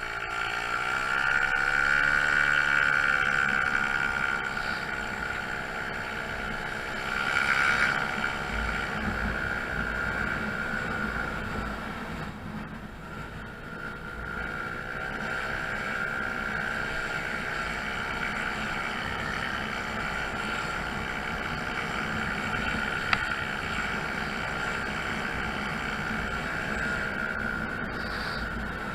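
Honda Zoomer's 49cc four-stroke single-cylinder engine running under way, its pitch rising as it accelerates in the first couple of seconds. It eases off around twelve seconds in and picks up again, then holds a steady pace.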